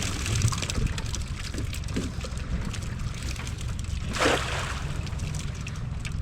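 Water lapping and sloshing with a low wind rumble on the microphone, and one short splash about four seconds in.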